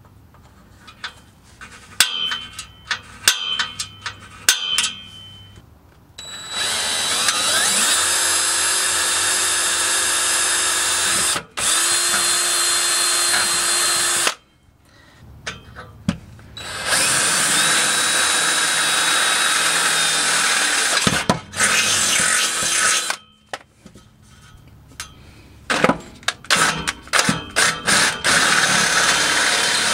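A cordless drill boring into a steel exhaust pipe, running in stretches of a few seconds that stop and restart several times. Before the drilling, and again near the end, comes a series of sharp metallic clicks that make the pipe ring, from a center punch marking the spot and from the bit working the metal.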